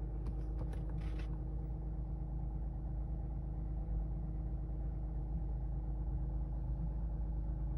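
Lexus GS350's 3.5-litre V6 idling with a steady low hum, heard from inside the cabin, with a few light clicks in the first second or so.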